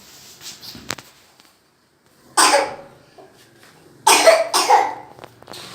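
A person coughing: one cough about two and a half seconds in, then two more in quick succession about a second and a half later.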